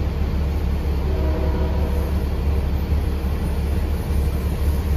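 Steady low rumble heard inside a transit bus as a passenger train rolls past outside the windows.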